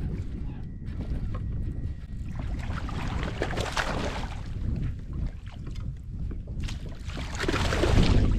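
Wind buffeting the microphone as a steady low rumble, with two longer swells of rushing noise, about three seconds in and again near the end.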